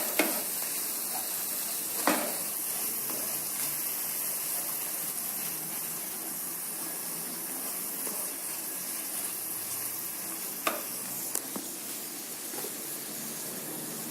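Blended spice paste sizzling steadily in hot oil in a pan as it is sautéed, with a few sharp clicks of a utensil against the pan, about two seconds in and again near eleven seconds.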